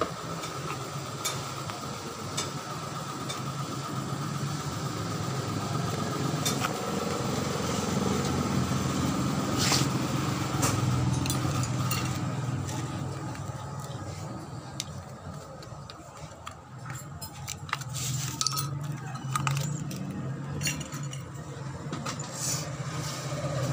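Scattered light metal clinks and taps as a gas-kit pressure reducer's metal housing and screws are handled and worked with a screwdriver, over a steady low engine hum.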